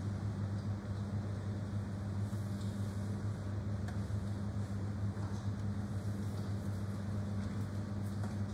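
Steady low hum with an even background hiss, unchanging throughout, with a faint click about four seconds in.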